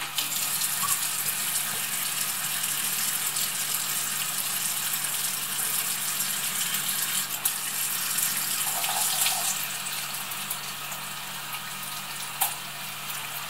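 Kitchen tap running steadily into a bowl of buckwheat over a stainless steel sink while the grains are swished by hand and rinsed. The water noise eases a little after about ten seconds.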